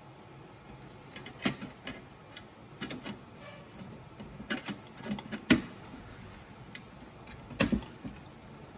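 Metal bracket and graphics card being handled as the support bracket is refitted: a few irregular sharp clicks and knocks, the loudest about five and a half and seven and a half seconds in.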